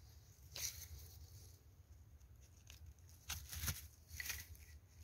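Faint rustling and crackling of dry pine needles and grass as mushrooms are handled and a knife is brought in, in a few short scratchy bursts, the loudest about three and a half seconds in, over a steady low rumble.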